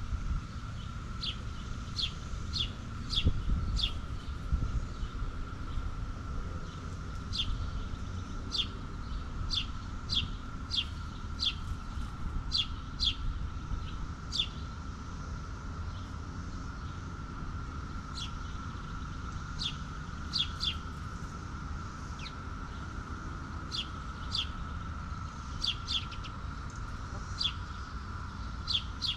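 Birds chirping: short, high chirps repeated irregularly, sometimes in quick runs, over a steady high hum and a low rumble.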